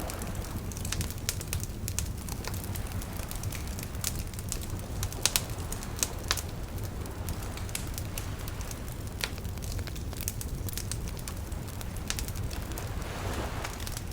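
Wood campfire crackling, with scattered sharp pops over a steady low rumble; the loudest pops come about five and six seconds in, and a short hiss rises near the end.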